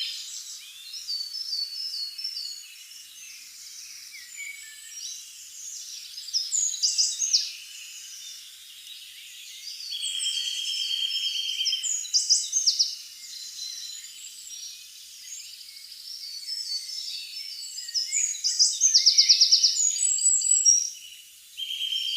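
Several wild birds singing and calling at once: overlapping chirps, whistles and trills, with a steady buzzing trill for a couple of seconds near the middle. The loudest part is a fast run of rapidly repeated notes a little before the end.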